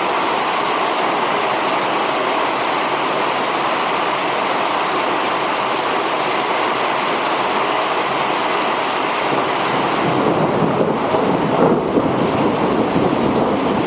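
Torrential rain pouring steadily. About ten seconds in, a low rumble of thunder swells beneath it.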